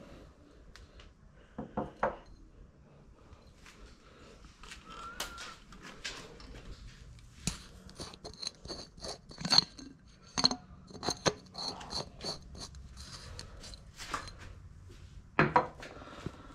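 Clinks and knocks of small glass and metal items being picked up, handled and set down on a counter. A quick run of them comes in the middle, several with a short bright ring, and a single louder knock comes near the end.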